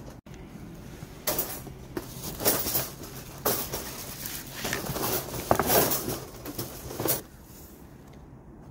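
A trapped stray cat thrashing inside a wire live-capture trap, rattling and jolting the metal cage in repeated irregular bursts for several seconds. The bursts stop about seven seconds in.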